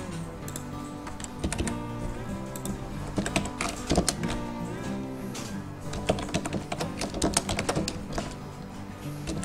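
Computer keyboard typing in runs of quick keystroke clicks, over background music.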